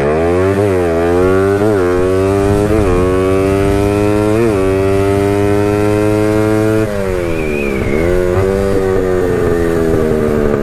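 Drag-racing motorcycle engine at full throttle, accelerating hard through the gears: the pitch climbs and drops briefly at four upshifts in the first four and a half seconds, then holds high. About seven seconds in the throttle shuts, the revs fall, and the engine dips a few more times as the bike slows after the run.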